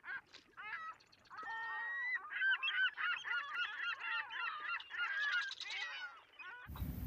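A flock of gulls calling, many short cries overlapping one another. The calls cut off suddenly near the end, giving way to a steady room hiss.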